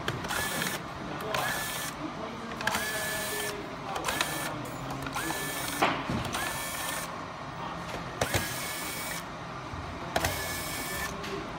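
Handheld electric screwdriver running in short bursts, about eight runs of half a second to a second each, backing screws out of a robot vacuum's plastic underside. Each run opens with a quick rising whine that then holds steady, and a few sharp clicks fall between the runs.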